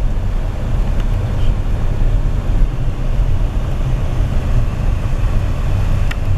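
Steady low rumble of a Toyota's engine and running gear heard from inside the cabin, with a brief click near the end.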